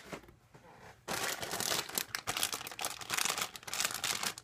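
Clear plastic bag crinkling and rustling as a bagged model-kit parts runner is picked up and handled, starting about a second in.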